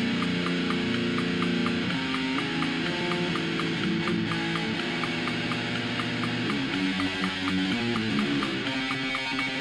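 Distorted electric guitar, a Gibson SG, playing a line of held notes that change every second or so, over a steady tick about four times a second.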